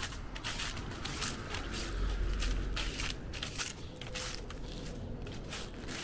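Footsteps crunching on a dry, gritty or leaf-strewn path at a steady walking pace, about two or three crisp steps a second, with a low rumble in the middle.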